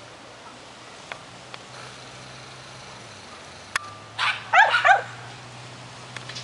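A dog barking in a quick burst of about four short, high-pitched yaps a little past halfway.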